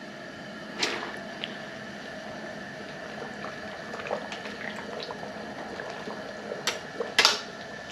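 Salted water at a rolling boil in an aluminium stockpot as a basket of mud crabs is lowered into it, bubbling steadily. A few sharp clinks of the metal basket against the pot, about a second in and twice near the end.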